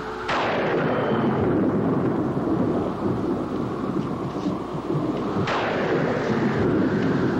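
Two claps of thunder about five seconds apart, each starting with a sharp crack and rolling into a long, low rumble.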